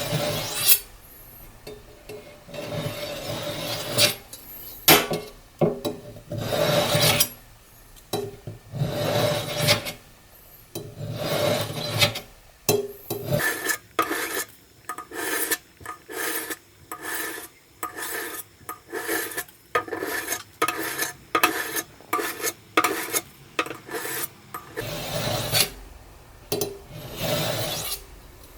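Kitchen knife blade being sharpened by stroking it against the kitchen sink basin, used as a makeshift sharpener: repeated rasping scrapes of metal. Long strokes of about a second each give way about halfway to quicker, shorter strokes about two a second with a faint ring, then a few long strokes return near the end.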